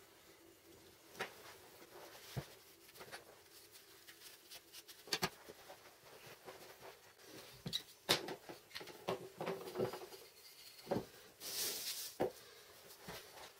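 Scattered clicks and light knocks from plastic quick-release bar clamps and MDF blocks being handled on a wooden tabletop, with a brief rustle of paper near the end.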